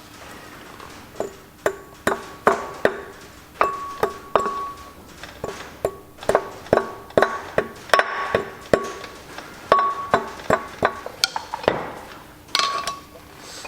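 Hammer blows on steel at the flywheel bolts of a Massey Ferguson 135, roughly two a second, each with a short metallic ring. The blows seat and tighten the bolts.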